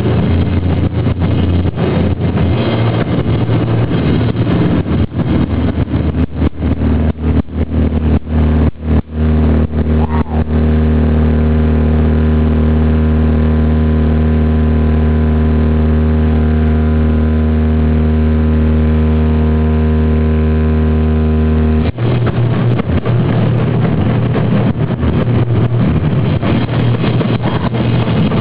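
Live sludge metal played very loud: heavily distorted electric guitar with drums, hitting a string of short stop-start blasts, then letting one chord ring out and drone, unchanged, for about eleven seconds. The held chord cuts off suddenly and the full band comes back in.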